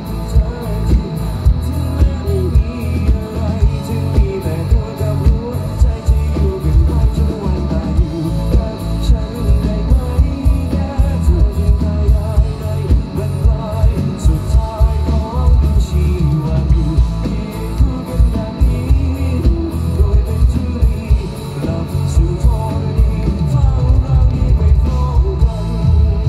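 Live rock band playing loud through a stage PA: a male singer over electric guitars, bass guitar and drums keeping a steady beat.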